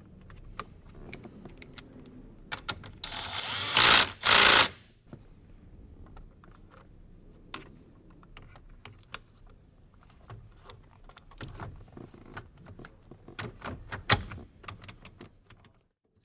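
Scattered clicks and light knocks of plastic trim and parts being handled and fitted in a car interior, with two short, loud rasping bursts about four seconds in.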